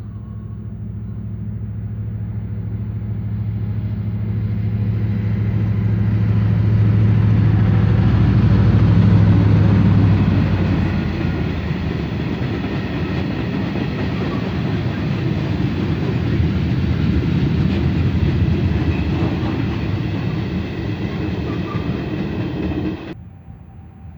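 Diesel locomotive hauling a freight train past: its engine drone swells to a peak about a third of the way in, then the wagons roll and rattle past on the track. The sound cuts off abruptly near the end.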